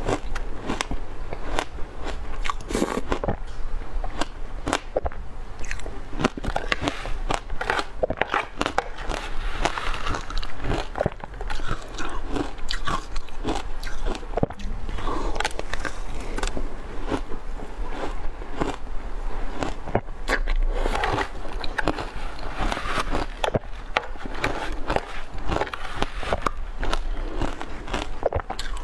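Shaved ice dusted with matcha powder being bitten and chewed up close: a dense, continuous run of crackling crunches.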